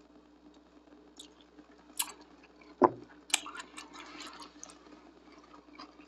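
Close-miked mouth sounds of eating and drinking: a loud gulp about three seconds in, after a sip of soda through a straw, then wet chewing with small clicks and smacks.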